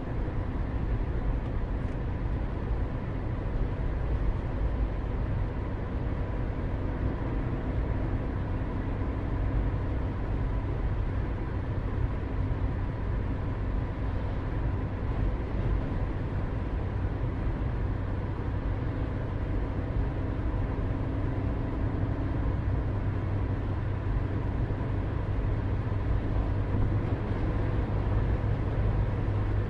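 Steady low mechanical rumble with a faint constant hum, like distant engines heard outdoors; it does not change in level throughout.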